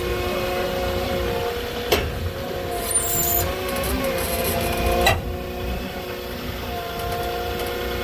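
Diesel engine of a truck-mounted forklift or its truck running at a steady speed, with two sharp metallic knocks about two and five seconds in and a brief high squeal around three seconds.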